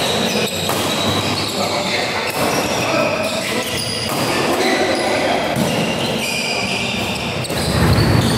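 Badminton doubles rally in a hall: sharp racket strikes on the shuttlecock about every second, with shoe squeaks on the court mat and voices in the background.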